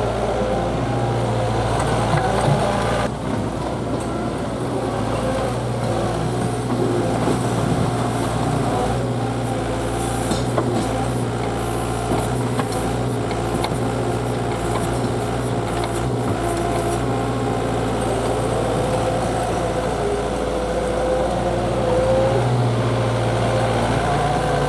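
A diesel engine running steadily, with a slight rise in pitch near the end.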